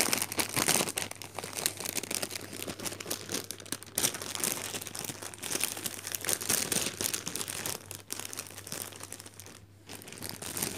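Clear plastic wrapping crinkling and crackling in irregular bursts as hands pull it off a magazine. The crinkling thins out briefly near the end.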